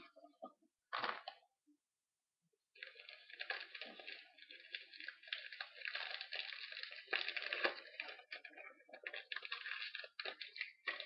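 A trading-card pack wrapper being torn open and crinkled in the hands: a single click about a second in, then continuous crackling and crumpling from about three seconds in.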